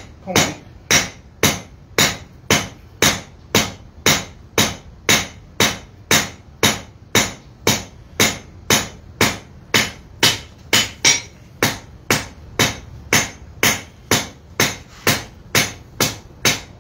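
Blacksmith's hand hammer striking a red-hot 3/8-inch steel bar on an anvil in a steady rhythm of about two blows a second, forging a point on the end of the bar.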